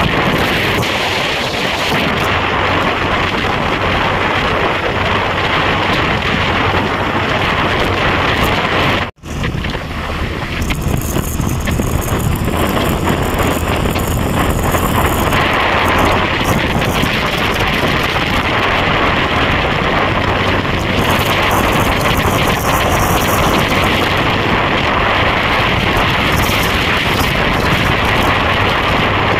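Steady rush of wind over the microphone, with engine and road noise from a motorcycle riding along a highway. The sound drops out for a moment about nine seconds in, then carries on.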